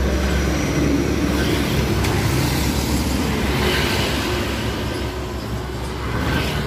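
Road traffic going past close by: a steady low rumble with a vehicle passing that swells about halfway through, and a motorcycle coming along the road near the end.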